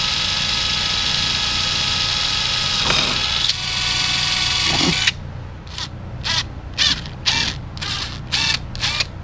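Electric drill running steadily with a high motor whine for about five seconds, then cutting off suddenly, followed by about seven short bursts as the trigger is squeezed briefly.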